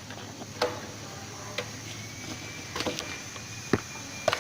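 Hand spanner and small nuts clicking and tapping as the nuts on a motorcycle's headlight meter guard are undone: about seven sharp, irregular clicks over a steady low hum.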